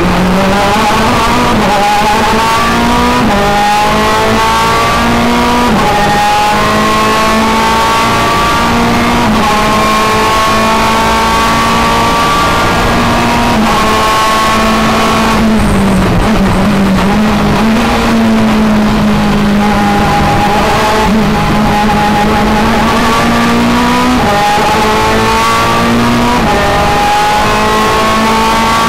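Ferrari F430 GT2 race car's V8 heard from inside the cockpit at racing speed. The revs climb in each gear and drop back at each shift. About halfway through they break off as the car slows and shifts down, then the engine pulls back up through the gears.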